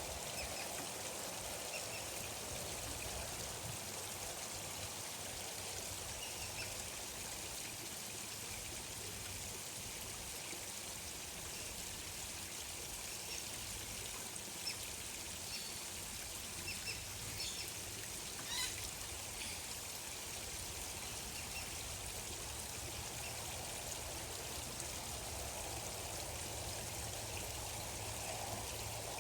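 Steady trickle of running water, with faint short bird calls now and then and a few brief, sharper calls near the middle.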